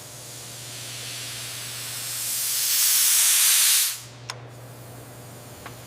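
A long hiss of escaping gas that swells to its loudest about three seconds in and cuts off sharply at four, over a steady low hum. A single sharp click follows just after.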